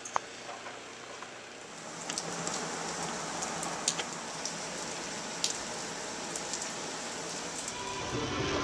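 Rain pattering, coming in about two seconds in, with scattered sharp ticks of single drops. A low rumble rises near the end.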